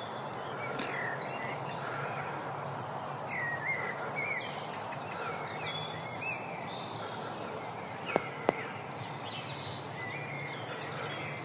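Outdoor background noise with birds chirping in short calls through the middle, over a faint steady low hum. Two sharp clicks about eight seconds in.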